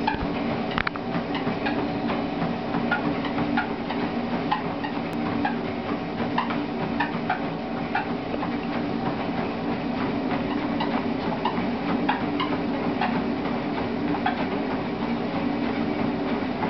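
Motorized treadmill running steadily with a hum from its motor and belt, and a dog's paws and claws tapping and clicking irregularly on the moving belt as a Bouvier des Flandres walks on it.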